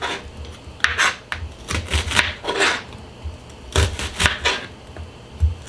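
Kitchen knife slicing through a red onion onto a plastic cutting board: about ten short, crisp cutting strokes, each ending in a knock on the board, coming unevenly in twos and threes.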